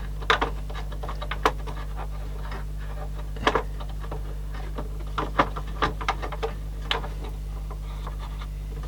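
Scattered small clicks and taps of hands handling the CD player's plastic parts and the belt, over a steady low electrical hum.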